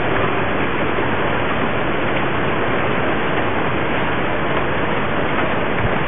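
Heavy rain mixed with marble-sized hail pouring down in a tornadic thunderstorm, a steady loud rush of noise with no let-up.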